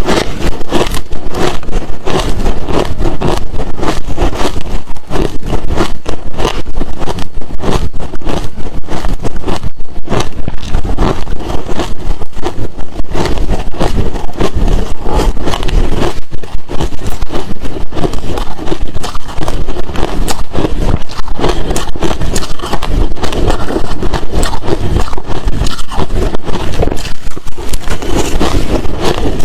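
Close-miked chewing of hard crushed and shaved ice: loud, continuous rapid crunching, one bite after another.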